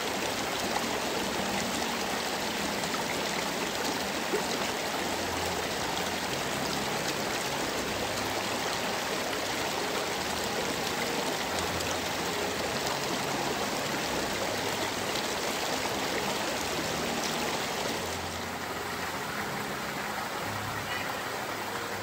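A mountain waterfall, its water cascading over rock with a steady, full rush. About eighteen seconds in the rush becomes a little softer.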